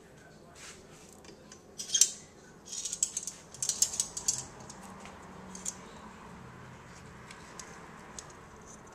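Metal kitchen tongs clacking and scraping against a glass casserole dish as chicken tenders are picked out. There is a sharp clack about two seconds in, then a quick flurry of clicks and clatter over the next couple of seconds, and one more clack a little later.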